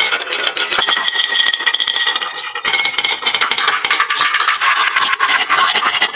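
Many marbles rolling and clattering down a wooden marble-run slope: a dense, continuous stream of rapid clicks and rolling rattle.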